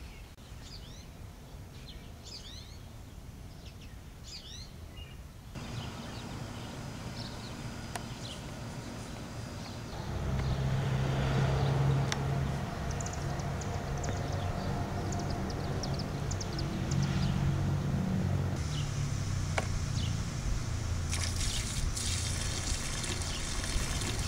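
Outdoor ambience with small birds chirping, a steady low hum through the middle, then liquid splashing and trickling as it is poured from a plastic jug into a storm drain grate near the end.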